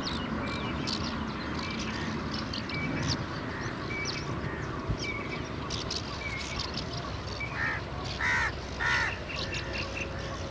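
Birds calling: many short high chirps and a brief high note repeated about once a second, with three louder calls close together near the end, over a steady low background noise.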